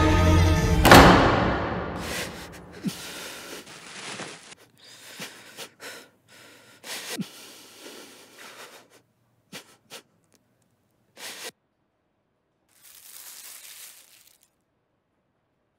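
Background score ending in a loud sting about a second in that fades away over a couple of seconds, followed by a man's sparse, uneven gasps and breaths with a few short clicks and a brief soft rush of noise near the end.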